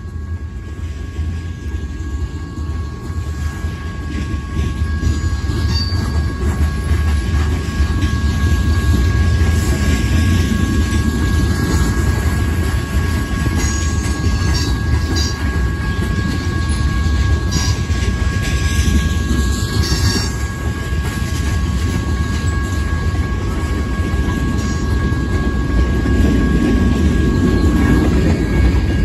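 Freight train of covered hopper cars rolling past close by: a loud, steady low rumble of wheels on rail, with scattered clicks from the rail joints. A thin, steady high-pitched squeal sits over it.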